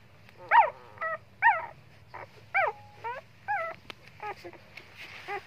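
Young puppies whimpering: a string of short, high cries that rise and fall in pitch, about one a second.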